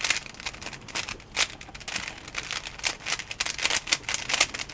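Plastic Rubik's cube being turned quickly through an algorithm: an irregular run of clicks and rattles as the layers turn and snap into place.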